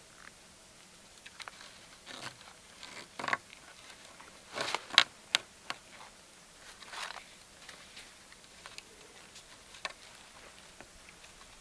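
Cord being wrapped and pulled tight to lash a wooden pole to a log: scattered short rubbing pulls and clicks, with the loudest cluster of sharp snaps about five seconds in.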